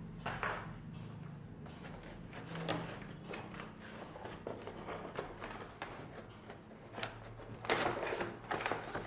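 Unboxing handling sounds: scattered light clicks, taps and rustles as items are moved and unpacked, with a louder rustle about eight seconds in, over a faint steady low hum.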